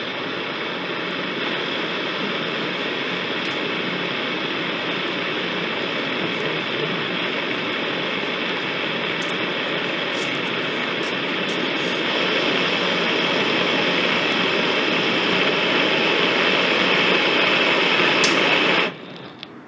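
Small hybrid rocket motor firing on a test stand: its exhaust gives a steady rushing hiss with a few sharp crackles. It grows a little louder about twelve seconds in and cuts off suddenly near the end.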